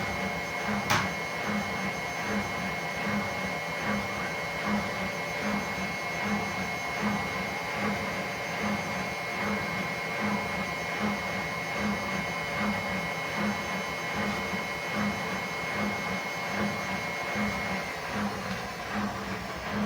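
Washing machine on its spin cycle: a steady motor whine with a low pulsing beat about twice a second. There is a sharp click about a second in, and the whine falls away shortly before the end.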